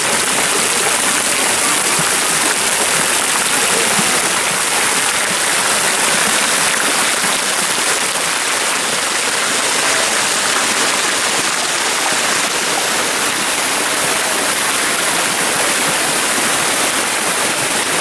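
Garden fountains: many thin water jets arching and splashing into stone basins, with cascades pouring down, making a steady, dense rush of splashing water.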